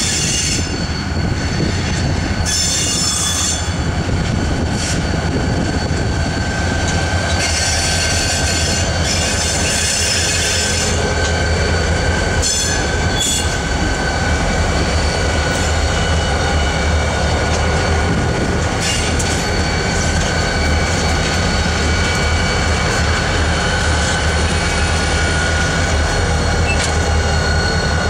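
Several six-axle diesel locomotives pulling a grain train pass close by, their engines running with a steady low rumble. Thin, steady wheel squeal rides over the rumble throughout.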